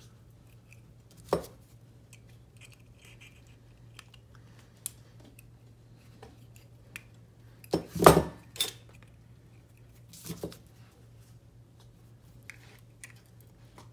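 Small side cutters clicking and clinking against a gold-filled pocket watch crown as the gold-filled shell is cut and peeled off it: a sharp click about a second and a half in, the loudest cluster of metal clinks around eight seconds, and two more clicks just after ten seconds, with faint ticks in between.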